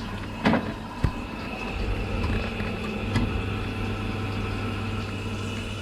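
Gas boiler's fan running with a steady hum and a few sharp clicks as it tries to light, with no ignition spark: the spark generator is giving no spark to the electrode.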